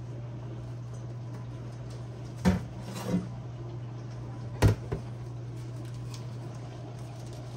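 A steady low hum with four short knocks: two loud ones about two and a half and four and a half seconds in, each followed by a softer one.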